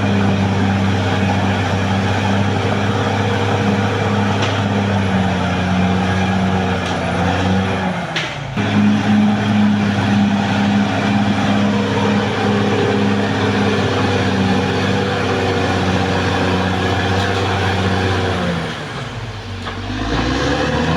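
Caterpillar D6R XL bulldozer's diesel engine running steadily at working revs. There is a brief break about eight seconds in, and near the end the engine note sags lower and then climbs back up.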